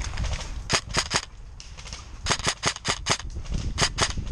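Airsoft gunfire: about a dozen sharp single shots fired in quick, uneven runs.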